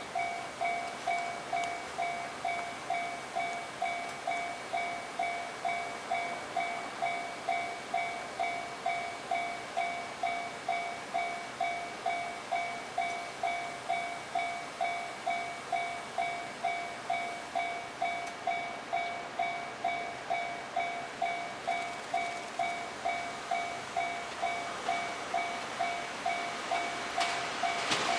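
Japanese railway level-crossing warning bell ringing steadily, a two-tone 'kan-kan' strike about twice a second, signalling that a train is coming. A train's running noise swells near the end.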